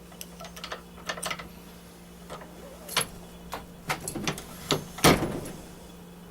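Metal clicks and clunks of a reloading press and brass case being worked, swaging the military primer crimp out of the case. A run of sharp knocks ends in one loud clack about five seconds in.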